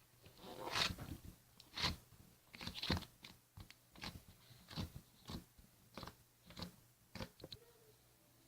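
A series of crisp crunches, a dozen or so at roughly one a second, that thin out and stop near the end.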